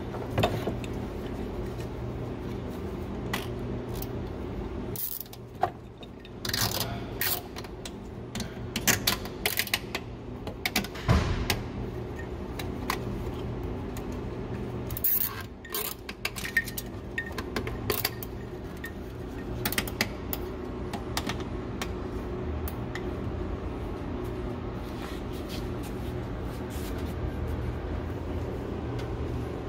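Scattered clicks, scrapes and light knocks of tools and small wiring parts being handled, busiest in the first half, over a steady background hum.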